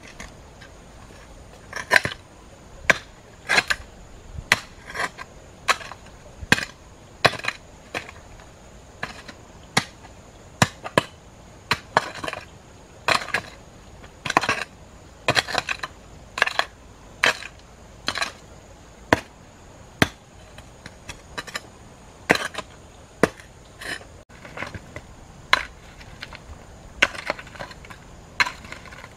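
Metal digging tools, a hoe and then an iron digging bar, striking hard, stony earth in repeated blows a little more than once a second. A few strokes come with a longer scrape of loosened soil and stones.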